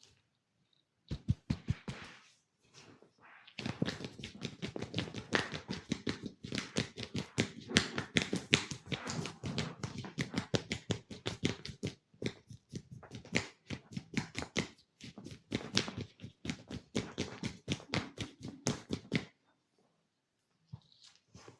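Massage percussion: hands rapidly tapping and slapping on the body in a fast run of sharp strikes, several a second, with a brief break partway through.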